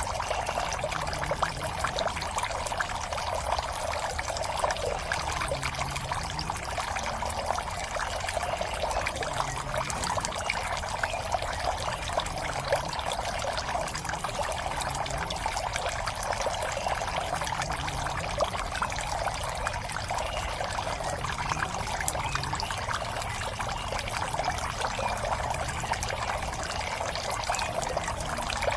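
Water pouring and trickling steadily into a pond, a continuous splashing with no pauses.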